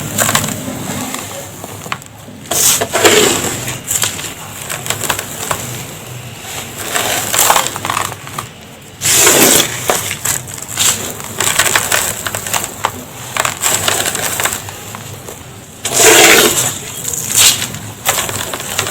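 Dry powdery red dust pouring and crumbling in a tub: steady crackly crunching and gritty hiss, with louder bursts where more falls at once, near the start, about halfway through and near the end.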